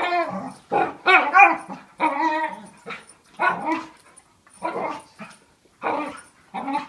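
Dog making weird vocal noises while play fighting with another dog: about a dozen short, pitched whining, yipping and barking calls, roughly one every half second to a second.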